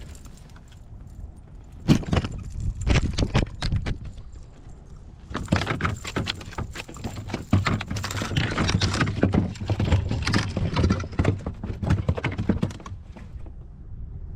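Gear knocking and rattling in a kayak: a short clatter of knocks about two seconds in, then a longer, denser run of knocks and rattles from about five seconds in that stops near the end.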